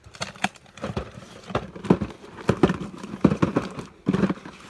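Taped cardboard shipping case being opened and its flaps pulled back: an irregular run of short knocks, scrapes and rustles of cardboard and packing tape.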